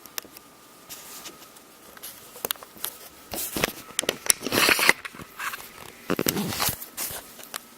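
Handling noises: scattered clicks and knocks, with a louder rustling, scraping burst about halfway through and another shorter one near the end.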